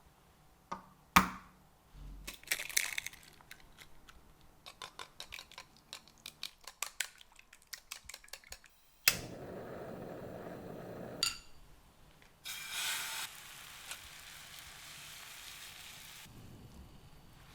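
Kitchen food-preparation sounds: a sharp clink, then a run of light taps of utensils and dishes, then a sudden stretch of rushing noise that gives way to a softer steady hiss.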